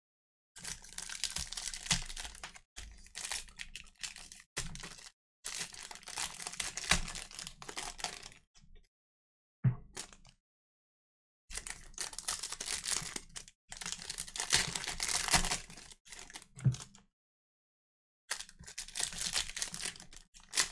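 Plastic or foil trading-card pack wrappers being torn open and crinkled by hand, in a run of rustling bursts with short pauses between them.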